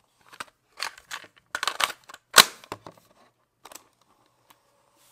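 Sony Clear Voice handheld cassette recorder being handled: a quick run of plastic clicks and clacks from its case and cassette door, the loudest about halfway through.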